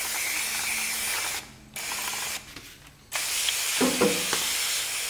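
Hand pump sprayer misting water onto a painted panel to wet it for wet sanding: three hissing bursts of spray with short pauses between them, and a brief squeak about four seconds in.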